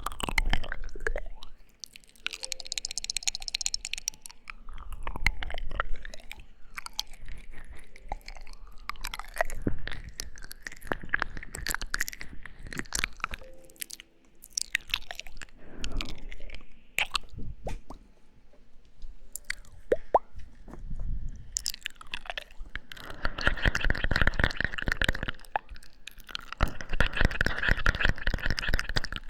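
Close-miked ASMR mouth sounds: wet smacks and clicks of lips and tongue, coming in runs of rapid crackles that are densest near the end.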